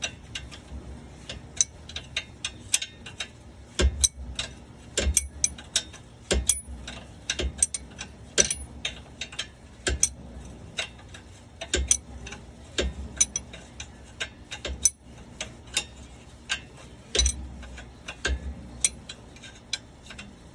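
Hand ratchet wrench clicking in short, uneven strokes, with sharp metal clicks and occasional knocks of tools against the car's parts.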